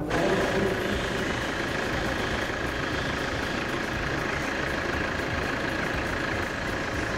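Truck engine idling steadily, a constant even running sound with no change in pace.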